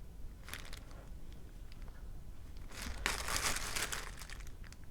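Plastic packaging crinkling as a new dishwasher detergent dispenser is unwrapped, loudest for about a second and a half past the middle, with a few light clicks before it.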